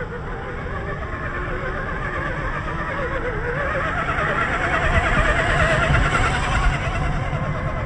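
Electric motors and drivetrains of 1/10-scale RC crawlers whining as they churn through thick mud, wavering in pitch with the throttle, over a low squelching rumble of mud from the spinning tyres. The whine grows louder around the middle, as one crawler passes close.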